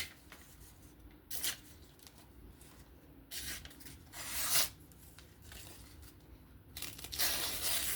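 A freshly stropped pocket knife edge being tested for sharpness in about four short, rasping slicing strokes, the last one longer.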